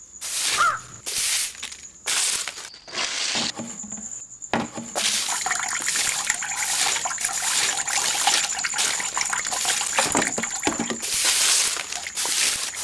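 A stick broom sweeping a concrete yard in quick, repeated scratchy strokes, which come faster and run together from about five seconds in.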